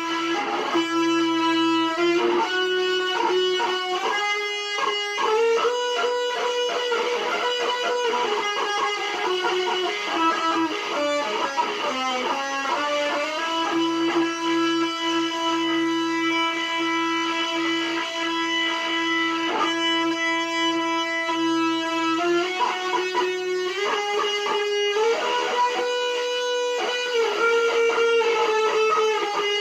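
Electric guitar, a sunburst Les Paul-style solid-body, playing a slow lead melody of long sustained notes that slide and bend between pitches, with one note held for several seconds midway.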